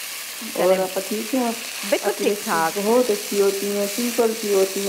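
Ginger and garlic sizzling in hot oil in a wok, a steady hiss, under a woman's voice talking.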